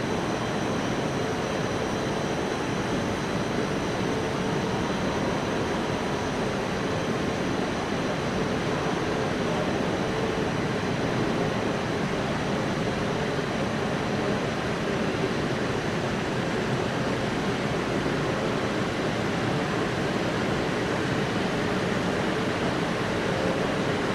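Steady hum and hiss of ventilation and parked-train equipment under a train shed roof, with a few faint steady whining tones and no sudden sounds.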